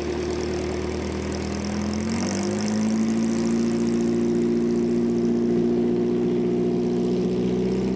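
A river boat's engine running under way. Its note rises about two seconds in as it picks up speed, then holds steady, with the water at the stern churning under it.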